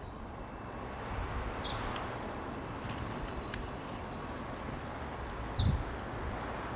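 Small backyard birds giving a few short, scattered chirps, the sharpest and highest about three and a half seconds in, over a steady outdoor background hiss. A brief low thud comes near the end.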